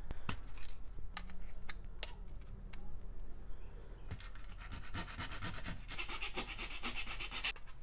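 Side cutters snipping through the plastic centre brace of a dash kit: several sharp snaps of plastic. Then, from about halfway to near the end, quick even scraping as a hand tool trims the cut plastic edge.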